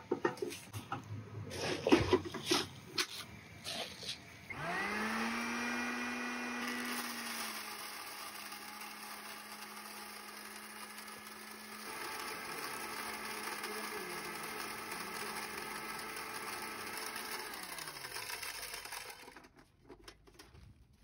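Clattering knocks, then a Kadmec Euromill 25 electric grain mill starts about four seconds in with a rising whine. It runs with a steady motor hum while cracking dry feed corn through its fine sieve, and winds down with a falling pitch before stopping near the end.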